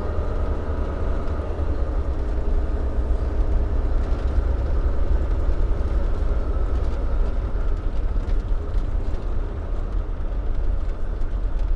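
A vehicle driving slowly over ground-up asphalt millings, heard from inside the cab: a steady low road and engine rumble with a faint engine hum.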